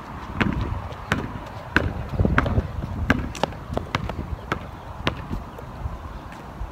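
Basketball bouncing on asphalt as it is dribbled: a string of sharp, irregular bounces, about one to two a second.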